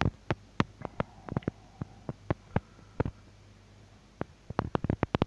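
Irregular sharp clicks and taps, a dozen or more spread through, crowding together near the end, over a faint steady low hum.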